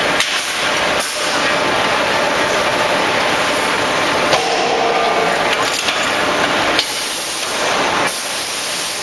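Hydraulic die forging hammer at work on a red-hot blank: a loud, steady hiss, with several sharp knocks at irregular intervals.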